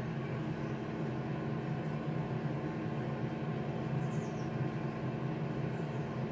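Aicook countertop air fryer oven running on its rotisserie setting: a steady, even hum from its fan and spit motor.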